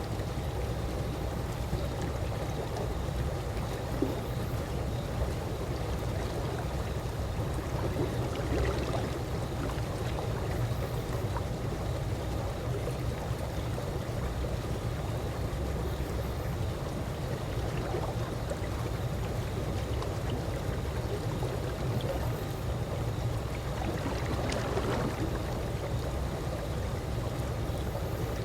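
Calm swimming-pool water lapping gently in a steady, even wash with a deep low undertone, and now and then a soft small splash.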